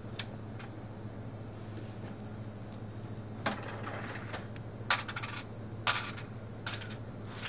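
A handful of short, sharp clinks of small hard objects, about five in the second half, over a steady low electrical hum.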